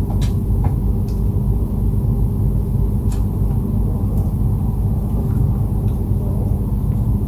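Steady low rumble and hum, with a few faint light clicks over it.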